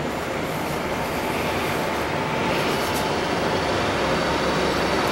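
Steady city rumble, growing slightly louder toward the end, with no distinct firework bangs.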